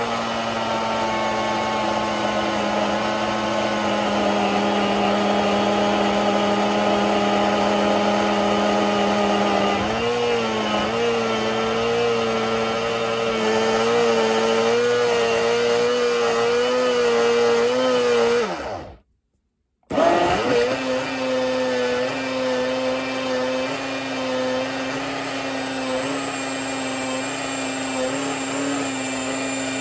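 Hamilton Beach single-serve blender motor running on a thick, still partly hard mix of banana, mango and milk. Its pitch steps up slightly about a third of the way in. It stops for about a second about two-thirds of the way through, then starts again and runs on steadily.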